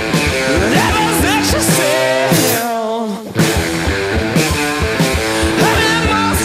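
Noise/sludge rock band playing loud, distorted electric guitar chords with sliding, bending notes over a steady drum beat. About three seconds in the sound briefly thins to a falling slide, then the full band crashes back in.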